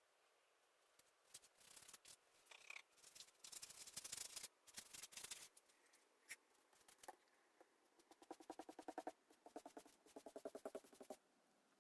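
Faint scratching and rubbing strokes, with a run of rapid back-and-forth strokes at about ten a second in the second half.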